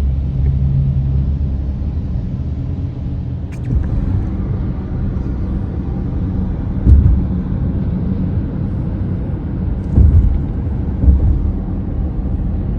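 Steady low rumble of a car driving in traffic, heard from inside the cabin, with a few dull thumps about midway and near the end.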